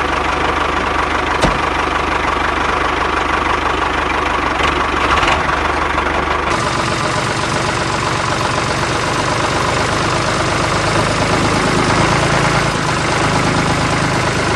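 Steady engine running sound, like a heavy vehicle idling, with an abrupt change in its character about six and a half seconds in.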